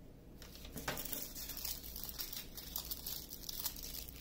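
Small plastic bags of diamond-painting drills crinkling as they are picked up and sorted by hand, an irregular run of rustles that starts about half a second in.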